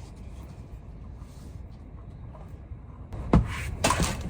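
Handling noises over a low steady rumble: a sharp knock a little over three seconds in, then several lighter clicks and knocks as objects are moved.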